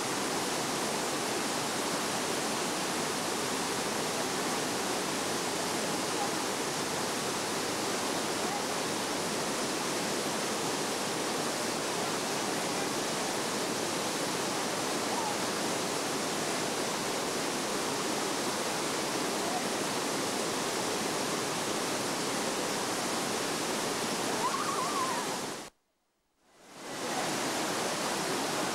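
Steady rush of water cascading over the rocks of Dunn's River Falls. The sound drops out for about a second near the end, then returns.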